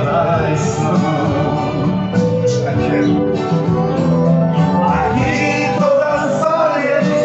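Music: a man singing over instrumental accompaniment in a country style.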